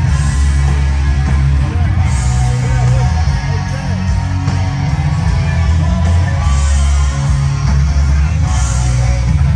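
Loud rock music from a live cover band: electric guitar over a heavy bass and drum beat.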